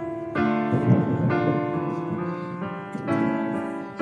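Background piano music, with notes and chords changing every half second or so.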